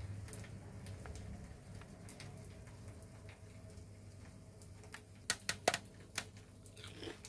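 Scattered faint clicks and taps over a steady low hum, then a quick run of four or five sharp clicks about five seconds in.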